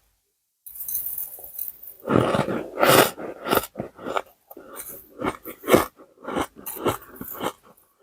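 Ice being chewed close to the microphone: a run of irregular, loud crunches that thickens about two seconds in.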